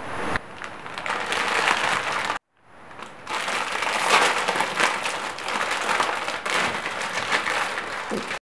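Plastic instant-noodle packets crinkling and crackling as they are handled and torn open, a dense crackle that breaks off for a moment about two and a half seconds in.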